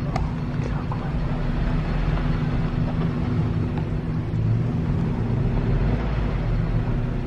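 Honda CR-V's engine running steadily at low speed with tyre and road noise, heard from inside the cabin: an even low hum.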